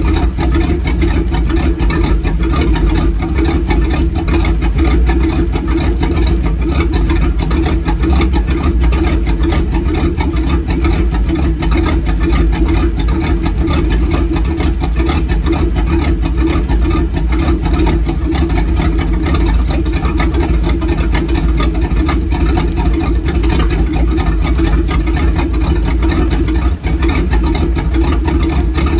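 Sterndrive speedboat engine idling steadily on its trailer while being flushed with fresh water from a garden hose hooked to the drive, the cooling water splashing out around the drive to rinse out salt water.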